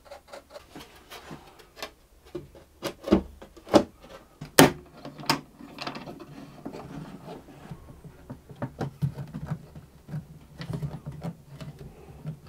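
Scattered knocks, clicks and rubbing from work on a cello body: a brush spreading glue along the ribs, then cello clamps being set against the edge and screwed down to hold the top in place. The sharpest knocks come about four to five seconds in.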